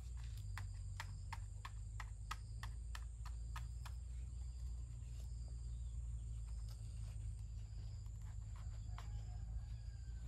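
A knife chopping into the rind of a round green fruit: sharp cuts about three a second for the first few seconds, then slower and sparser. Behind it is a steady high insect buzz that stops about two-thirds of the way in, and a low rumble.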